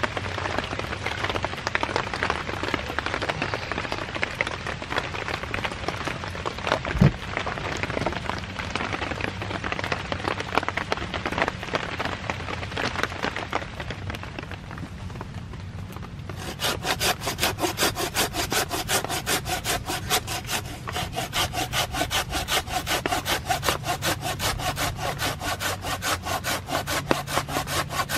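Steady rain falling, with a single knock about seven seconds in. Just past halfway, a folding hand saw starts cutting through a log with fast, even back-and-forth strokes.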